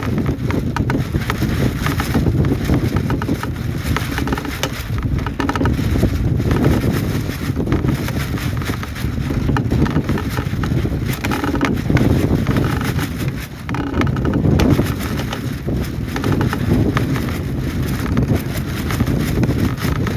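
Strong wind buffeting the microphone: a loud, continuous, uneven rush, heaviest in the low range.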